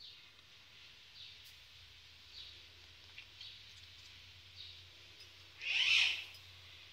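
A bird calling over and over with a short falling chirp, about once a second, over a low steady hum. About six seconds in comes a single louder, longer sound.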